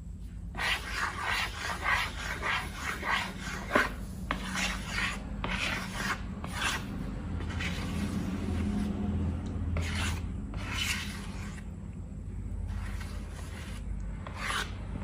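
Repeated rubbing and scraping strokes from hands working slime-making materials, fast and regular at about three strokes a second at first, then slower and uneven.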